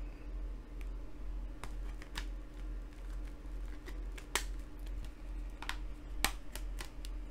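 A handful of light plastic clicks and taps from handling a 4K UHD Blu-ray disc and its case, the loudest about four and six seconds in, over a faint steady hum.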